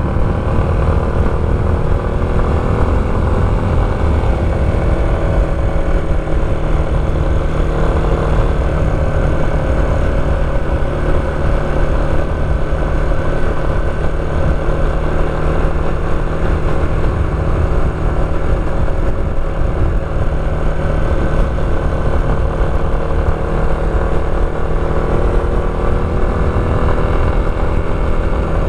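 Motorcycle engine running at a steady cruise, its pitch drifting slightly up and down, over a heavy low rumble.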